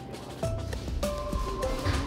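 Background music: a melody of short held notes stepping up and down over a regular beat.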